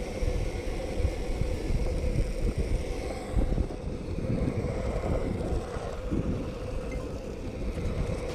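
Longboard's urethane wheels rolling fast over asphalt, a steady rumble picked up close by a deck-mounted camera, with wind buffeting the microphone. The rumble eases slightly in the second half.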